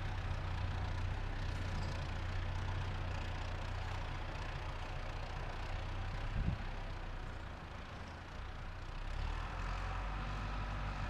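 Diesel machinery engine running steadily at low speed, with a single knock about six and a half seconds in and the engine sound dipping briefly around eight seconds in.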